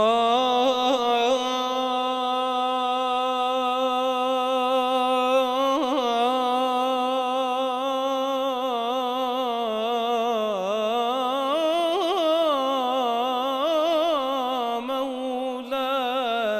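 A man chanting a solo munajat (Islamic supplication) in maqam Saba, without accompaniment, in one long wordless held note with a fast ornamental waver. The pitch dips and turns about two-thirds of the way through.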